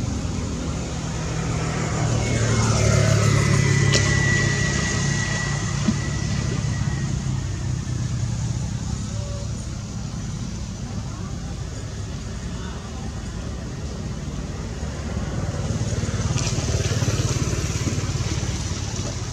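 Motor vehicles passing on a nearby road over a steady low rumble of traffic. The first swells and falls in pitch a few seconds in, and a second one passes near the end.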